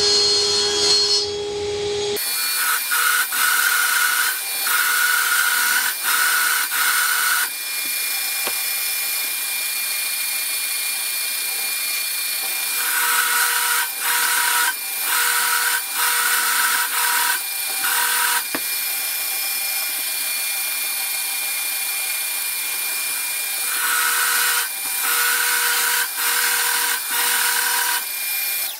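A table saw running for about two seconds, then a benchtop drill press running steadily with its bit boring into plywood. There are three spells of cutting, each made of short repeated plunges, with the motor running on between them.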